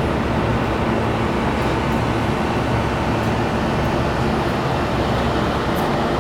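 Car ferry's engines and machinery running with a very noisy, steady low drone, heard on the open deck at the stern.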